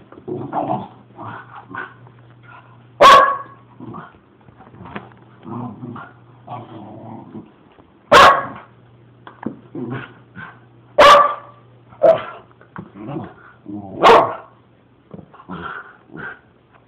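Miniature schnauzer barking in play: four loud, sharp barks a few seconds apart, with quieter growls and grumbles between them.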